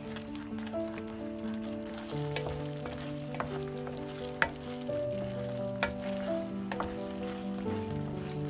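Thick curry filling of minced beef and pork with onion and carrot sizzling in a frying pan as a wooden spatula stirs and scrapes it down to a thick paste, with sharp taps of the spatula on the pan, the loudest about four seconds in. Background music of held chords plays under it.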